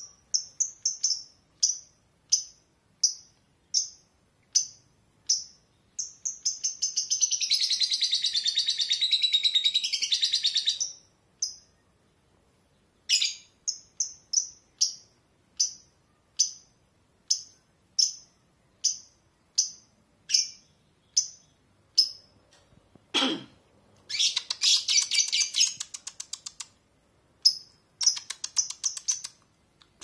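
Lovebirds calling: a steady series of short, sharp high chirps, about one and a half a second, broken twice by a long rattling chatter (ngekek), the first lasting about four seconds. A single sharp knock sounds about two-thirds of the way through.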